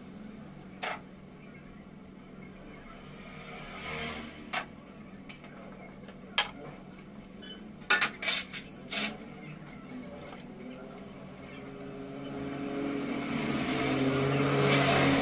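A few sharp clinks and knocks, several close together about two-thirds of the way through, then a motor vehicle's engine growing louder over the last few seconds.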